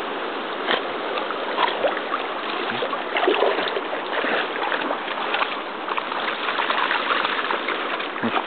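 Moving water: a steady rush with many small crackles and splashes.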